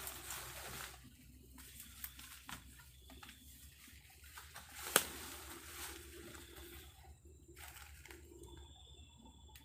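Rustling and crackling of dry bamboo leaves and litter as someone moves at the base of a bamboo clump, with one sharp snap about halfway through. A faint steady insect chirr comes in near the end.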